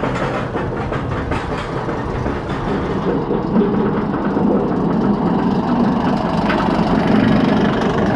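Steel roller coaster train of the Kraken floorless coaster running on its track: a steady, loud rumble with faint clatter.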